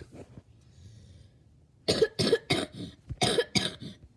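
A woman, ill with a fever, coughing: a rapid fit of about seven hacking coughs in quick succession, starting about two seconds in.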